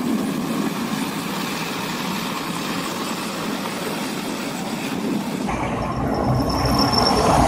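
Tracked vehicle running with its engine and tracks working through snow. About five and a half seconds in, it gives way to a tank driving on concrete: louder and deeper, with a brief high whine.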